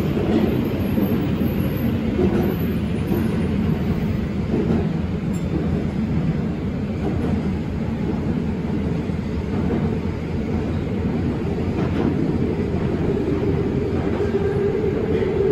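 Interior running noise of a Nagoya Municipal Subway Meijo Line train in a tunnel: a steady rumble of wheels on rail heard inside the car. Near the end a steady whine grows louder.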